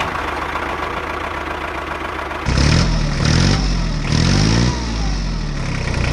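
Tractor engine running steadily, then from about two and a half seconds in louder and revving up and down several times.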